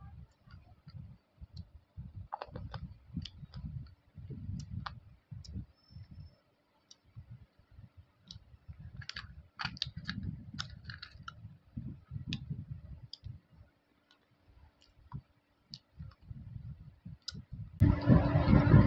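Slate pencil pieces being bitten and chewed: crisp crunching clicks over low chewing sounds, with a short lull about two-thirds through. In the last second a sudden loud rush of noise takes over.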